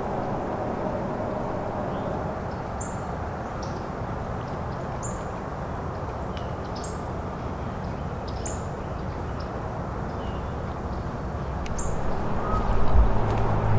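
A small bird giving short, high call notes, five of them about two seconds apart, over a steady low background rumble. Near the end come a few louder low thumps.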